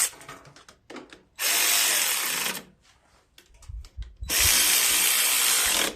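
Handheld power tool run in two short bursts, the first a little over a second long and the second about a second and a half.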